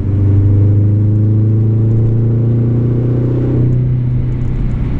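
Subaru Legacy GT's turbocharged flat-four, with an exhaust fitted with a boost-controlled cutout valve, accelerating, heard from inside the cabin. The engine note climbs steadily, then changes about three and a half seconds in.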